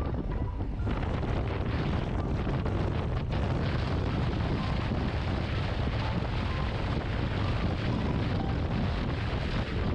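Heavy wind rumble on the GoPro camera's microphone at riding speed on a Harley-Davidson Street Glide ST, mixed with the bike's engine running beneath it. The sound is steady, with no change in throttle.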